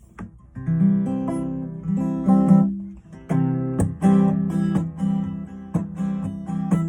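Acoustic guitar strumming the song's opening chords, a new stroke roughly every second, after a brief quiet moment at the start.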